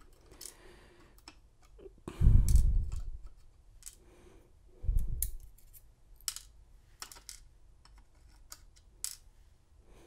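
Tweezers and small lock pins clicking and tapping as a brass padlock cylinder is handled on a plug follower over a pin tray. Two dull thumps stand out, about two and five seconds in.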